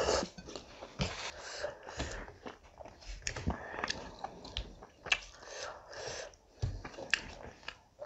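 Close-up chewing and wet mouth sounds of someone eating rice and curry, in short, irregular clicks and smacks.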